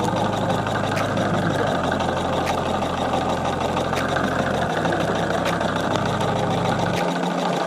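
Homemade two-cylinder solenoid engine running steadily with a fast, even mechanical clatter.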